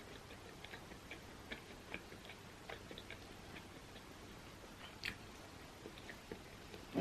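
Quiet close-miked chewing: small, soft mouth clicks every half second or so, with one sharper click about five seconds in.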